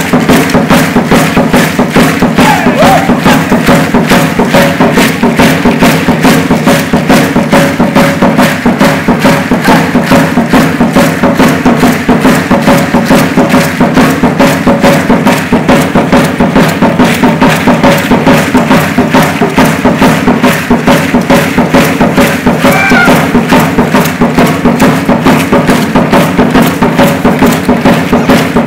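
Huehuetl, an upright wooden skin drum, beating a fast, steady rhythm for Aztec dance, with the rattle of dancers' seed-pod ankle rattles (ayoyotes) shaking along.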